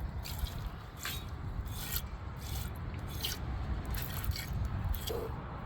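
Nubian goat being hand-milked: squirts of milk hissing into a container, in short irregular strokes about two a second.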